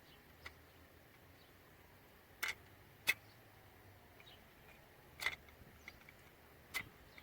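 Sharp, irregular clicks and taps of small plastic and metal headlight-switch parts being handled and fitted back together, five in all, with a few seconds between some of them.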